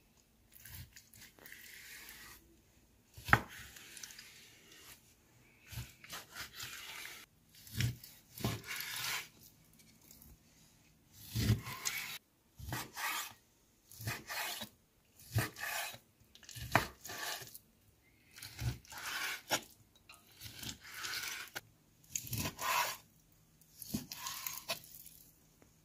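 A knife slicing raw chicken breast fillet on a wooden cutting board: a run of short cutting strokes about a second apart, each a soft rasp through the meat, with a few sharp knocks of the blade on the board.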